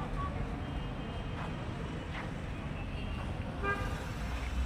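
Busy street traffic: a steady low rumble of engines, with a vehicle horn honking briefly near the end and fainter horns in the background.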